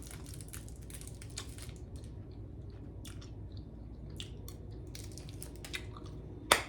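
Gum being chewed close to the microphone: irregular wet mouth clicks and smacks, with one sharper click near the end.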